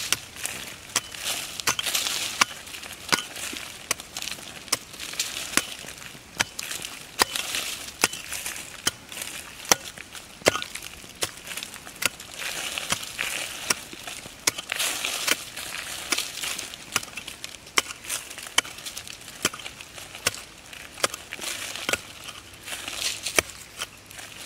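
Small hand pick chopping into loose soil, with repeated sharp strikes about one to two a second. Between the strikes the loosened dirt crumbles and scrapes.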